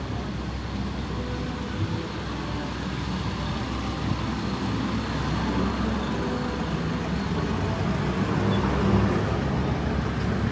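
Busy street traffic: vehicle engines running and passing, a steady hum and rumble of a road that grows a little louder about nine seconds in.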